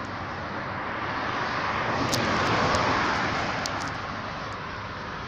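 A road vehicle driving past, its tyre and engine noise swelling to a peak about two and a half seconds in and then fading away, with no horn.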